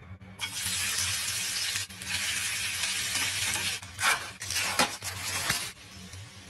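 Shredded raw potato sizzling as it hits hot oil in a nonstick frying pan, a loud hiss that starts about half a second in. Sharp spatula scrapes and taps come around four to five seconds in, and the sizzle drops away near the end.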